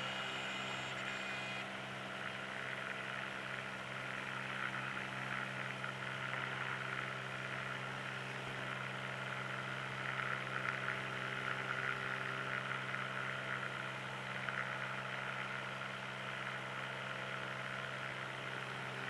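Light aircraft's piston engine and propeller running at takeoff power, heard from inside the cockpit as a steady, unchanging drone during the takeoff roll and climb-out.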